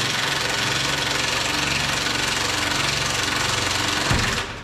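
Impact wrench running a bolt into the truck's frame cross member, a steady rapid rattle that stops shortly before the end.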